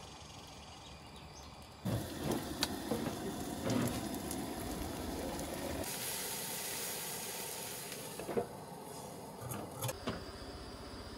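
Camp-kitchen cooking sounds at a Coleman two-burner camp stove. Cookware and utensils clink and knock from about two seconds in, then a steady hiss comes from the stove for a couple of seconds, and a few more knocks come near the end.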